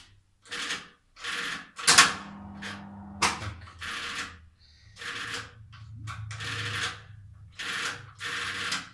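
Lathe's magnetic motor starters clacking as the machine is switched on and off: a loud clack about two seconds in with a second of motor hum, then a run of short rattling bursts about once a second over a low hum. The owner says the starters are worn and will need replacing.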